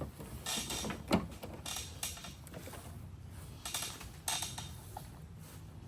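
A rubber plug and its Phillips screw being worked into a plastic truck headlight housing by hand: a few short scrapes and rubs, with a sharp click about a second in.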